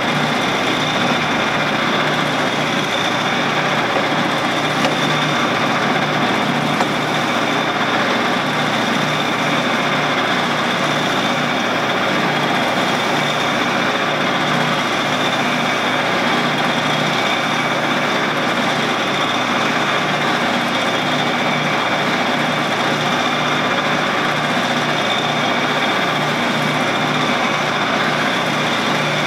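Shopsmith running as a lathe, its motor and drive turning steadily at speed with a steady high whine, while a rag loaded with metal polish is held against the spinning stainless steel tube.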